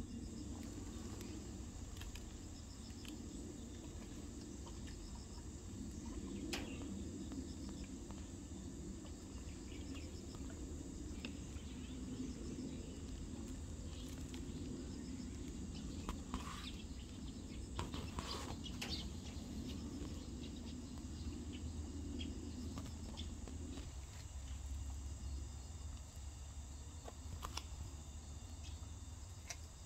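Background ambience: a steady low hum with faint insect chirping and a few scattered clicks or rustles; part of the hum drops away about three-quarters of the way through.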